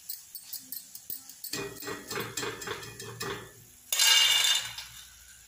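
Metal slotted spoon scraping and clinking against a kadhai while fried nimki are lifted out of the hot oil, with a brief loud noisy burst about four seconds in.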